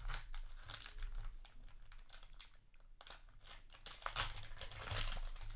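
Foil trading-card booster pack wrapper crinkling and crackling as it is torn open by hand and the cards are pulled out of it, in two busier stretches of crackles.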